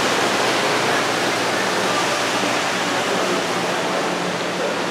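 Steady rush of falling water from a little indoor waterfall.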